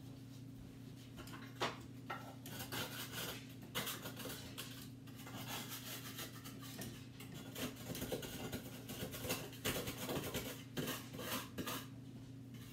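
A spatula scraping thick cookie dough off a stand mixer's paddle attachment, in irregular scrapes and light knocks against the paddle and the metal mixing bowl, over a steady low hum.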